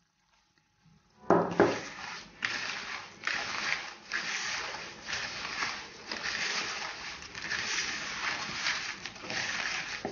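Hands rubbing and squeezing buttered digestive biscuit crumbs against a ceramic bowl: a gritty scraping and crunching that comes in repeated strokes, starting with two knocks about a second in.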